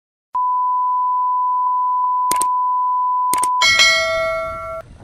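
Subscribe-button animation sound effect: a steady beep tone for about three seconds with two clicks in it, then a bell-like chime that rings for about a second and stops.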